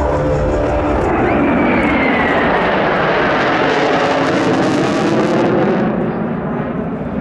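Fighter jets flying past: a loud jet roar with a whine that falls in pitch as they go by, turning duller near the end as they move away.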